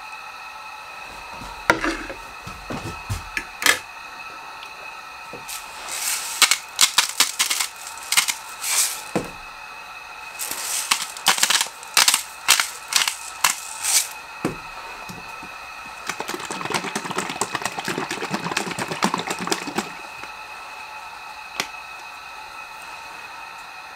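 A few knocks and clicks of a fork and plate as steak is slid onto a salad plate, then a hand-twisted seasoning grinder rasping over the food in quick strokes, two runs of a few seconds each, and a denser steady crackle of grinding for about four seconds after that.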